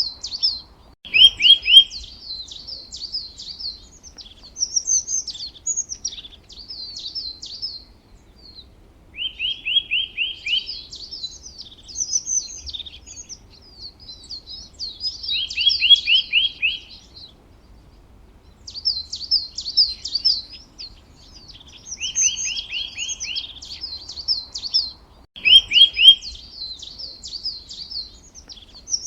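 Songbirds singing in phrases a few seconds apart, about seven in all, each phrase a quick run of repeated lower notes mixed with higher, rapid twittering, with short pauses between.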